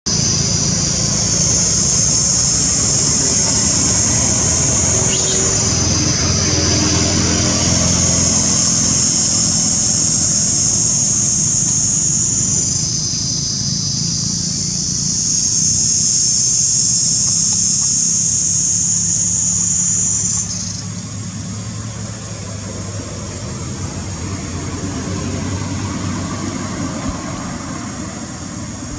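Loud, steady high-pitched drone of cicadas that dips lower and quieter for a few seconds, comes back, then falls away sharply about twenty seconds in, over a low rumble.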